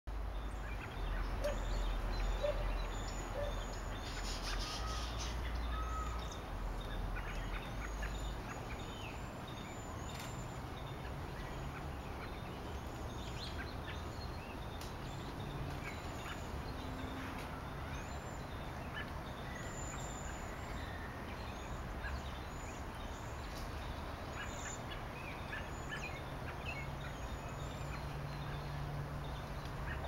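A chorus of American robins calling and singing as they gather to roost, with the thin, high-pitched calls of cedar waxwings, Carolina wrens and the chip of a yellow-rumped warbler mixed in. A low rumble runs underneath for the first eight seconds or so.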